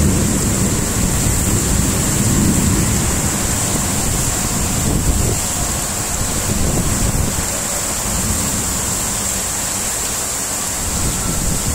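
Heavy rainstorm: rain pouring steadily with strong wind, gusts buffeting the microphone in low rumbling surges, strongest in the first few seconds and again about six seconds in.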